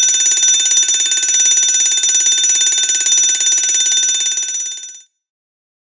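Electric fire alarm bell ringing continuously, its hammer striking the gong very rapidly. The ringing fades quickly and stops about five seconds in.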